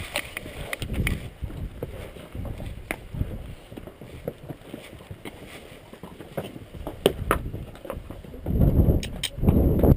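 Strong wind buffeting the microphone in gusts, with a heavy surge near the end, over the occasional clop of mule hooves on the rocky trail.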